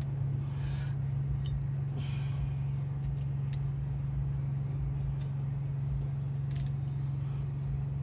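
Steady low mechanical hum, with a few light clicks and two brief scrapes from hand tools working on a BMX bike.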